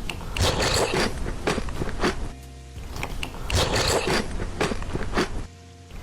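Close-up crunching and chewing of strawberry Oreo cereal, in runs of crunchy bites broken by two short pauses, one a little after two seconds in and one near the end.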